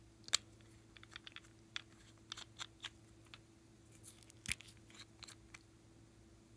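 Small plastic and glass makeup containers being handled and opened: scattered sharp little clicks and taps of nail-polish bottle caps and a lipstick-style tube. The loudest clicks come about half a second in and about four and a half seconds in.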